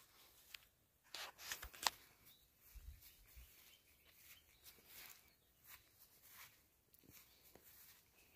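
Faint, irregular rustling with a few sharp clicks close to the microphone, busiest about a second in, where the loudest click comes, then softer rustles scattered through the rest.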